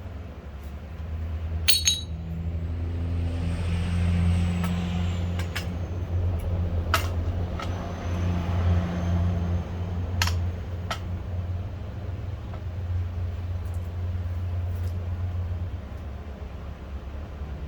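A motor running steadily with a low hum, with three sharp clicks or taps over it.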